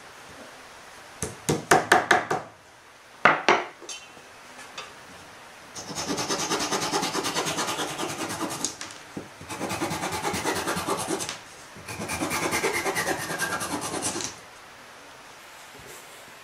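A hammer knocks on wood in a quick run of about six blows, then twice more; then a small hand saw cuts wood in three bouts of quick, fine strokes, each two to three seconds long.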